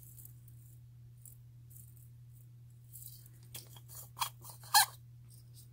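Sequins rattling and clicking in a clear plastic stacking sequin container as it is handled. The first seconds are quiet; about three seconds in come a run of sharp clicks and short rattles, with one louder click near the end.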